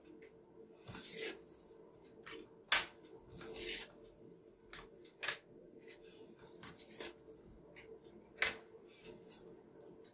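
Dry lasagna sheets being laid into a glass baking dish: three sharp clicks of stiff pasta tapping the glass, with a couple of brief rustles between.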